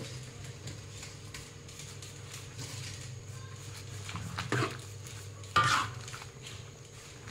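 Metal spatula scraping and knocking against a thin metal wok while stirring greens and shrimp in gravy. Two louder ringing clanks come about four and a half and five and a half seconds in, over a steady low hum.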